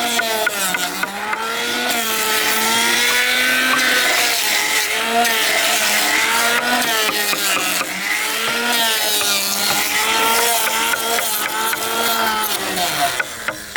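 A motor-driven woodworking machine running hard, its pitch dipping and recovering every second or two as it labours through wood, with a steady crackle of cutting. The motor stops shortly before the end, leaving a few scattered clicks.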